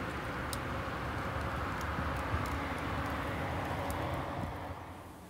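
Wind buffeting the microphone over a steady rushing noise, with a few faint crackles from logs burning in a wood-fired stove. The noise fades near the end.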